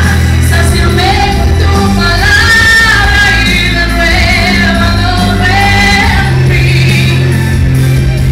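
Church worship music played loud and steady, with long held bass notes under a flowing melody line.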